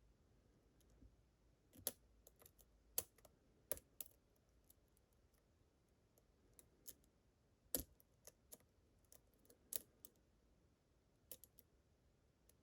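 Faint, irregular metallic clicks and ticks of a lock pick and tensioner working the rotating pins inside a Medeco-style high-security lock, with two sharper clicks about 3 and 8 seconds in.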